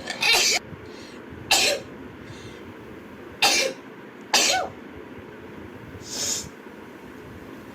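A woman sneezing five times in a row, each sneeze a short sharp burst with a voiced tail, spaced one to two seconds apart; the last is fainter.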